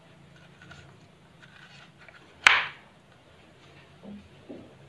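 Kitchen knife cutting through a pumpkin wedge and striking a wooden cutting board: one sharp knock about halfway through, then two softer knocks near the end.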